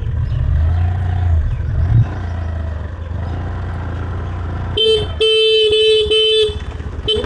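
Scooter's electric horn honking: a short toot about five seconds in, a longer run of beeps broken by brief gaps, and another short toot near the end. Under it, the low running rumble of the moving scooter and wind on the microphone.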